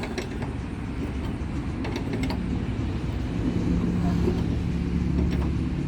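A motor running steadily with a low rumble and a hum that grows slightly louder partway through, with a few light clicks.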